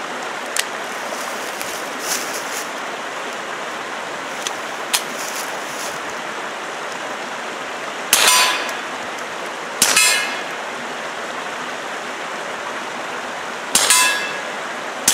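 Taurus TX22 .22 LR pistol fired through a fuel-filter suppressor with supersonic rounds: several shots a few seconds apart, each a short sharp crack with a brief ringing tail. Very quiet for a gunshot, over a steady rushing background.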